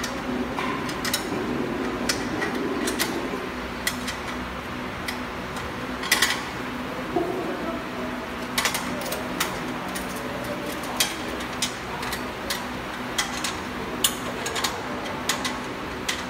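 Spanner clicking and clinking against the bolts and stainless steel frame of an inclined roller conveyor as its bolts are tightened: scattered sharp metallic clicks over a steady low hum.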